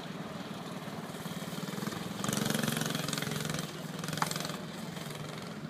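Go-kart's small engine running as the kart circles. It gets louder for about a second and a half from about two seconds in. There is one brief sharp sound about four seconds in.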